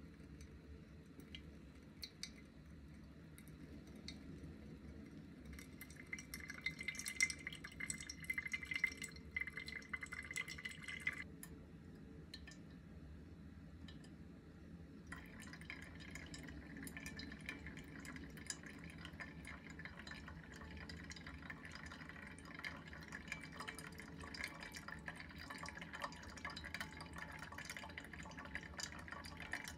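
Quiet trickle of a thin stream of hot water from a gooseneck kettle onto coffee grounds in a ceramic Kalita trapezoid dripper, with brewed coffee dripping into a glass server. The trickle comes in about five seconds in, drops away for a few seconds around eleven seconds, and then runs on steadily from about fifteen seconds.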